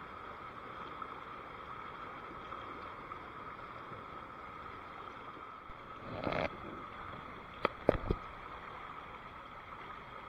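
Steady noise of flowing river water, with a splash about six seconds in and three sharp knocks close together around eight seconds.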